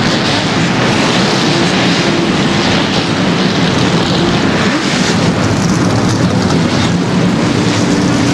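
NASCAR stock car V8 engines running after being started, a loud steady rumble.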